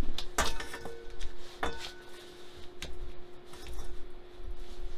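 Metal wok clanking against a bench vise and bar clamp as it is clamped up: two sharp clanks, each with a brief ring, about a second apart, then lighter clicks and rattles.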